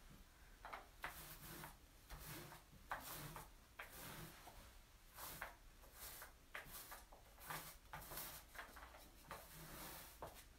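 Faint, irregular strokes of a paint roller rolling textured stone coating back and forth across a countertop, roughly one or two strokes a second.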